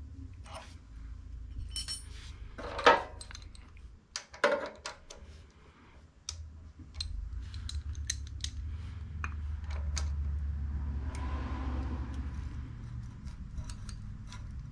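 Metal hand tools and engine parts clinking and clattering, with a few sharper knocks, during work on a small engine's valve train. A low steady hum runs underneath and grows louder past the middle.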